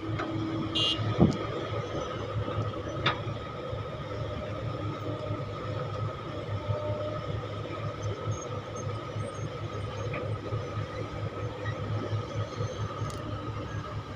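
Kobelco Mark 5 hydraulic excavator's diesel engine running steadily under load through one dig-and-load cycle, with a steady high whine over the engine drone. A brief sharp knock comes about a second in.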